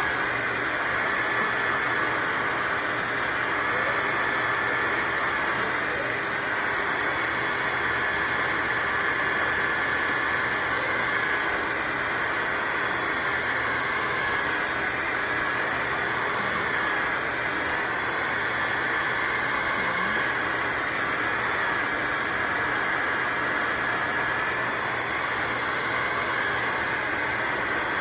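Shark HydroVac MessMaster wet-dry vacuum mop running steadily while scrubbing a stain: a high motor whine that wavers slightly in pitch over a rushing suction noise.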